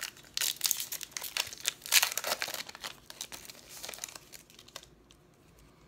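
Foil wrapper of a trading-card pack being torn open and crinkled by hand: rapid crackling rustles, loudest about two seconds in, that stop about five seconds in.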